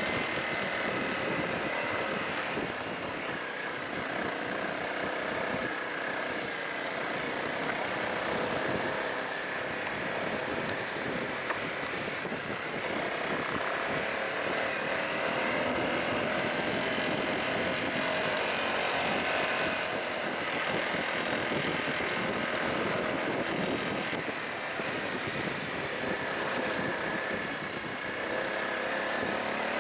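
Honda CRF250L's single-cylinder four-stroke engine running steadily while riding on gravel, its pitch rising and falling a little with the throttle. It is heard from on board the bike, under a haze of tyre and wind noise.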